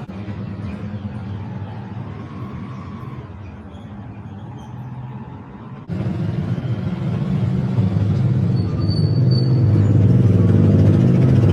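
An engine running steadily, a low rumbling hum, which cuts abruptly about six seconds in to a louder stretch of the same kind of engine noise.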